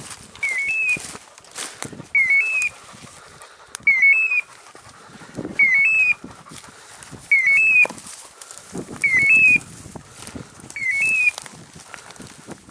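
Electronic beeper collar on an English setter sounding a short, stepped rising chirp about every 1.7 seconds, seven times: the collar's point-mode signal, which tells the hunter the dog is standing still on point. Brush rustles and crackles underfoot between the chirps.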